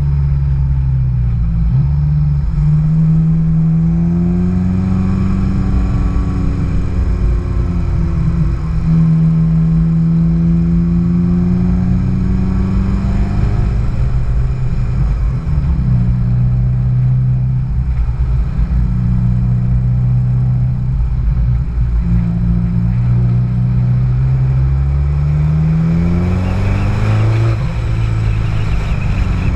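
Car engine running at low speed, its pitch rising and falling as it speeds up and eases off. Near the end it revs noticeably higher, then drops back.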